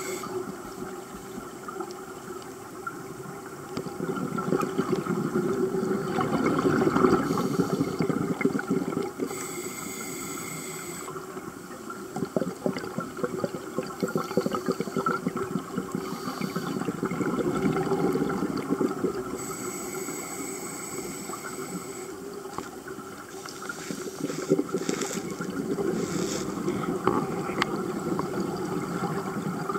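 Scuba diver breathing through a regulator underwater: long swells of gurgling exhaust bubbles alternate with shorter hissing in-breaths, about every ten seconds.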